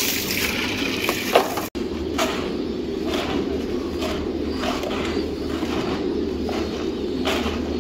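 Hands scooping and stirring dry feed pellets in a plastic tub: a rustling swish with each stroke, repeating about once or twice a second, over a steady low background noise. Before that, a single sharp knock of plastic feeders being handled.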